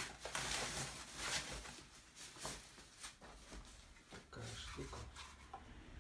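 Plastic wrapping bag rustling and crinkling as it is pulled off a monitor stand, heaviest in the first second and a half, then scattered light clicks and knocks as the stand is handled.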